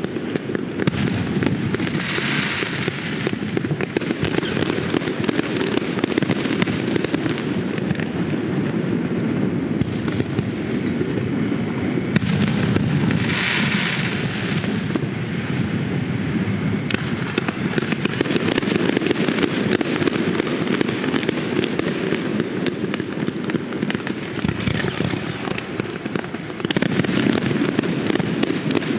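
Fireworks display: a continuous run of rapid bangs and pops over a steady rumble, with two bursts of loud hissing crackle, about two seconds in and again about thirteen seconds in.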